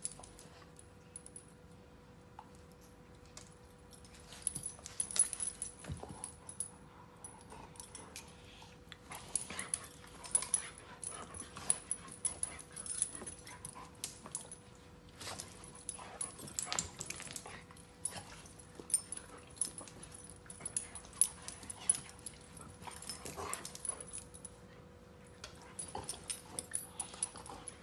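Two salukis play-wrestling: irregular scuffling, thumps and rustles of paws and bodies on a dog bed, mixed with the dogs' whimpers and yips.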